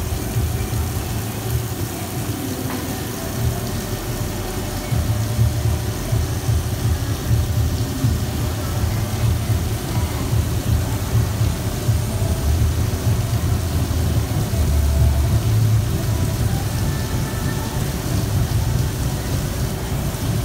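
Gantry CNC milling machine face milling a large metal plate with an extension head: a continuous, loud machining rumble from the cutter and spindle, with a steady hiss over it, getting louder about five seconds in.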